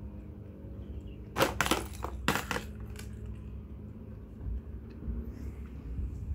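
A small ball rattling and knocking against the plastic dividers of a compartment tray as cats paw at it: a quick run of sharp clatters about a second and a half in, then a few lighter clicks.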